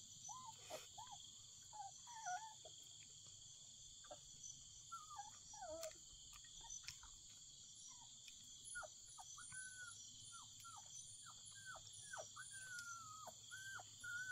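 Insects chirring steadily, with puppies whimpering: short high whines that slide up and drop in pitch, coming thick and fast from about eight seconds in.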